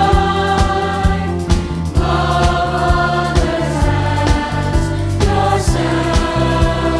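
Upbeat gospel-style music with a steady beat, a choir singing over bass and drums.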